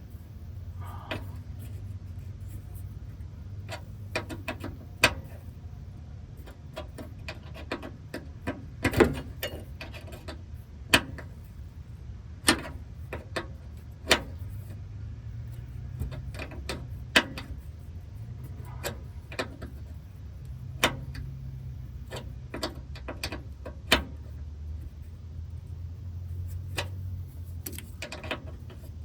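Sharp, irregular metal clicks and clinks of a wrench being worked back and forth on a seized brake line nut, one short stroke at a time, over a steady low hum.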